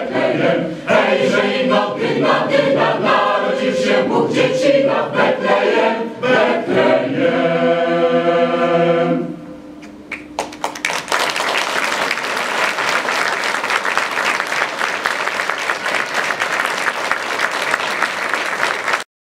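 Mixed choir singing the last line of a Polish carol refrain, ending on a long held chord about nine seconds in. After a brief lull, an audience applauds steadily until the sound cuts off abruptly near the end.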